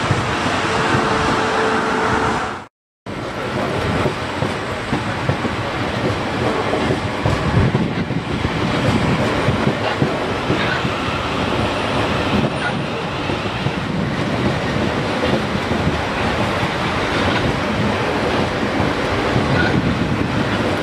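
South Western Railway electric multiple unit running past on the station approach tracks: a steady rumble of wheels on rail with a few short, high squeals. The sound drops out for a moment about three seconds in.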